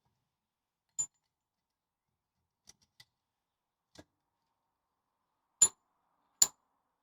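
Metal parts of a differential clinking as they are handled: about six sharp metallic clinks with a bright ring, the last two, near the end and a little under a second apart, much louder than the rest.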